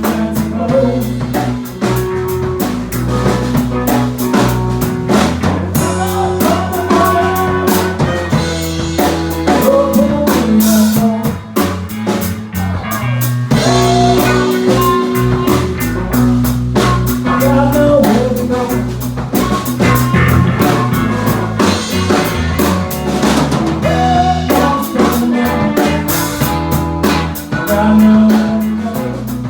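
Band playing a blues-rock tune: drum kit with snare rimshots, a bass line and guitar with bent, sliding notes.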